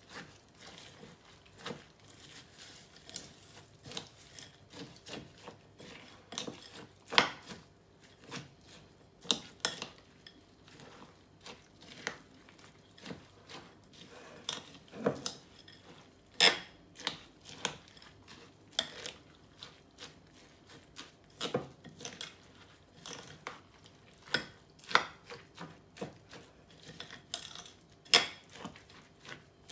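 Metal spoon stirring a granola mix of oats, seeds and berries in a glass bowl by hand, knocking and scraping against the glass in irregular clinks, a few a second.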